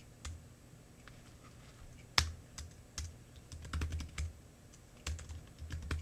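Computer keyboard keys being tapped in an irregular run, with one louder click about two seconds in and quicker clusters of keystrokes in the second half.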